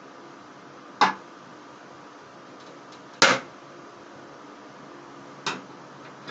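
Hand snips cutting through the sheet-metal shell of a metal piggy bank: three sharp snips about two seconds apart, the last one softer.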